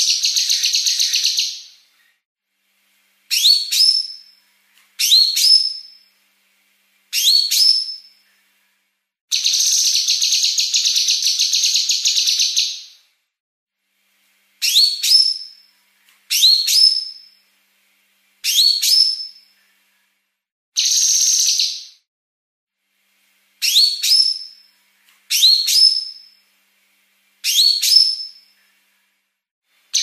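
Female blue-masked leafbird (cucak kinoi) calling fast and densely. Three buzzing trills, the middle one about four seconds long, alternate with short, rising whistled notes repeated every second or two.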